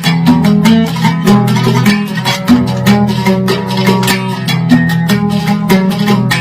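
A plucked lute playing a Yemeni folk melody in quick repeated plucks, with low notes ringing beneath a busy run of higher notes.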